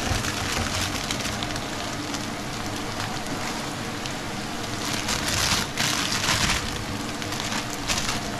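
Carrot, broccoli and cauliflower pieces tipped into a wok of red onions frying in hot oil, sizzling and crackling; the sizzle swells briefly a little past the middle.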